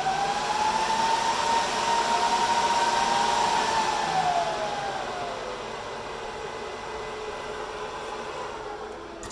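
Dell PowerEdge 2850 rack server's cooling fans at power-on: a loud rush of air with a whine that rises to full speed and holds. About four to five seconds in the whine falls and the fans settle to a quieter steady run, the server throttling its fans back after start-up.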